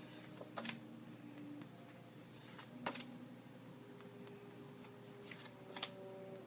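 Pen writing on paper cards, with three sharp taps spaced a couple of seconds apart over a faint hiss.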